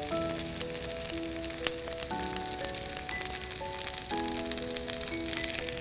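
Background music of held notes, the chord changing about every two seconds, over the faint sizzle of mini dosas frying in oil on a hot tawa as more oil is poured on.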